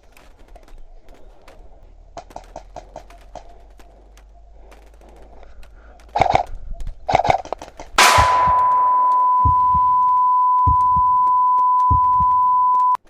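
Airsoft replica shots cracking in short strings, then a loud bang. A single steady high beep follows, held for about five seconds before it cuts off suddenly.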